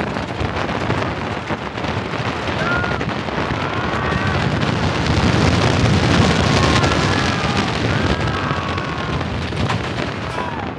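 Wooden roller coaster train on a wooden track, rumbling and clattering with wind noise on the microphone, louder midway through as it goes down a drop. Riders scream faintly several times.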